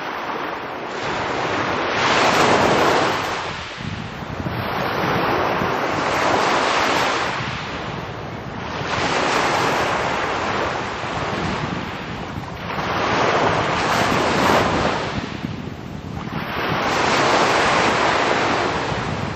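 Sea waves breaking and washing up a pebble beach, surging and falling back about every three to four seconds.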